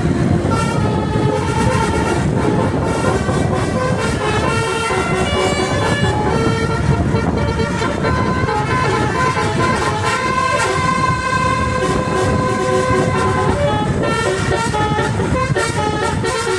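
Indonesian 'telolet' multi-tone bus horn playing a melody of held notes that change every second or so, over a steady low rumble.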